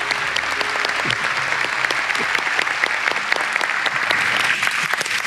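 Audience applauding steadily: a dense patter of many hands clapping.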